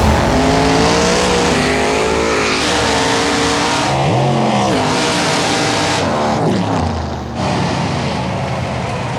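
Big-block Chevy drag cars on nitrous racing at full throttle, the engine note climbing through the gears with a shift about four seconds in, then falling away near the end of the run.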